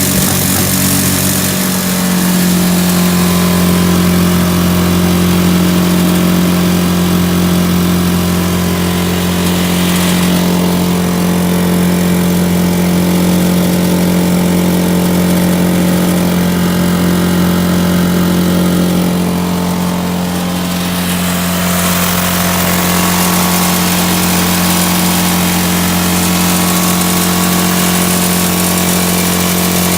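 Airman PGW150SI engine welder's gasoline engine running at a steady speed, its note settling about a second and a half in.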